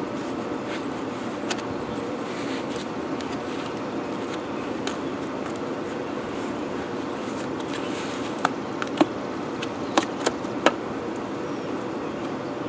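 Steady background hum, with a few sharp clicks and taps in the second half as the buffer is handled and a wool bonnet is fitted over its pad.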